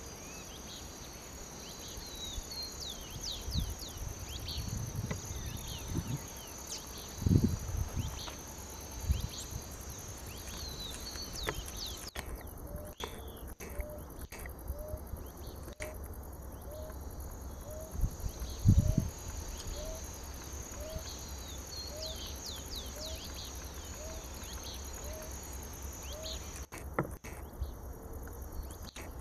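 Insects shrilling steadily, dropping out for a few seconds about halfway, with scattered bird chirps and a short call repeated about once a second through the second half. A few low rumbling gusts break in during the first third and once about two-thirds of the way through.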